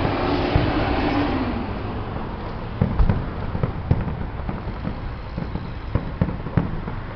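Distant fireworks and firecrackers popping and banging at irregular intervals, roughly every half second to second. A passing vehicle's noise fades out over the first second or two.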